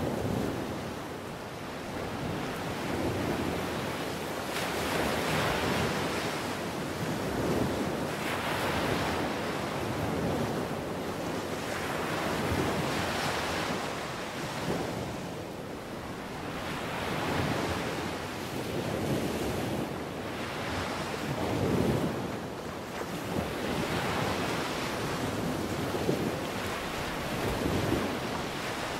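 Ocean surf breaking against rocky sea cliffs, wave after wave, the rush of water swelling and falling back every two to three seconds.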